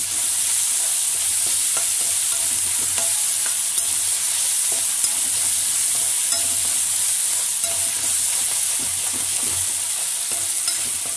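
Chopped onions, green chillies and curry leaves sizzling steadily in hot oil in a metal kadai, while a metal spatula stirs them, scraping and clicking against the pan.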